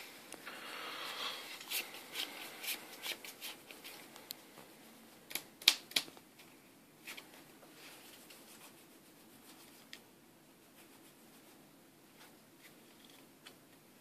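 Sleeved trading cards being handled and shuffled in the hand: soft rustling and a run of sharp clicks for the first few seconds, the loudest click about six seconds in, then only faint occasional ticks.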